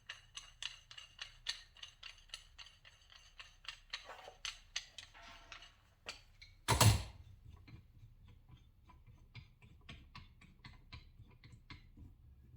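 Oil filter cutter being worked around a spin-on oil filter can: a quick series of ratcheting clicks, one loud knock about seven seconds in, then fainter clicks.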